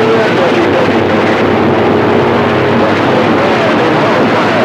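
A Ranger radio's receiver giving out loud, steady static, with faint garbled voices wavering through the noise from distant stations talking over one another.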